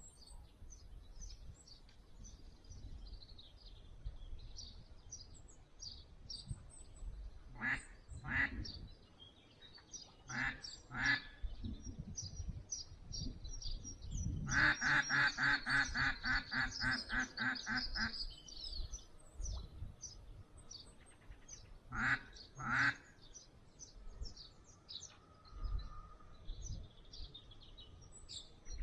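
Hen-mallard quacks blown on a duck call: a pair of quacks about 8 seconds in and another about 10 seconds in, then a fast run of about a dozen quacks from about 14 to 18 seconds, and a last pair near 22 seconds. Small songbirds chirp throughout.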